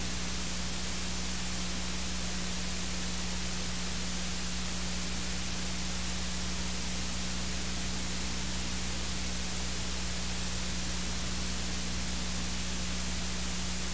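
Steady hiss with a constant low hum and no other sound: the blank audio track of a video recording made with no sound.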